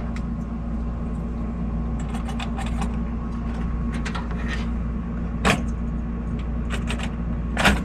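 Light clicks and taps of a Noctua NH-L9x65 low-profile CPU cooler and its mounting brackets being test-fitted by hand inside a computer case, with two sharper clicks about five and a half seconds in and near the end. A steady low hum runs underneath.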